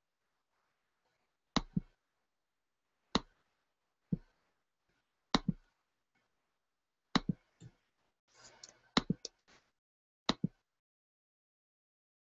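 Sharp clicks from someone working a computer, about a dozen spread a second or two apart, several as quick double clicks, with a short flurry of taps about eight and a half seconds in.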